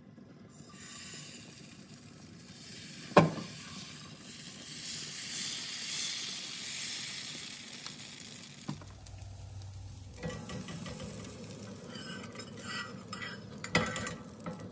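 Dosa batter sizzling on a hot cast-iron tawa, with one sharp knock about three seconds in. Near the end a metal spatula scrapes under the crisp dosa with crackling and clicks as it is lifted off the pan.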